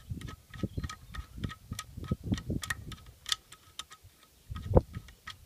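Light, irregular metallic clicks and ticks, several a second, from a screwdriver working a screw in an aluminium Ford Motorcraft 2100 two-barrel carburetor body, with dull low thuds of the carburetor being handled and one louder knock near the end.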